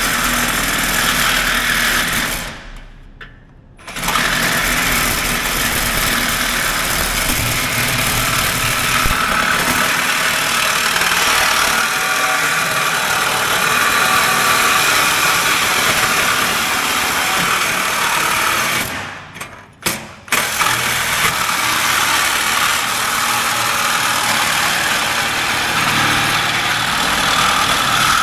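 Cordless reciprocating saw cutting through a rusted exhaust pipe, running loud and steady. It stops briefly twice, about three seconds in and again about two-thirds of the way through.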